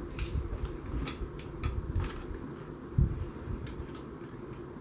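Handling noise from a metal SABRE M20 blaster chassis being lifted, turned and set back down on a work mat: scattered light clicks and knocks, with a dull thump about three seconds in.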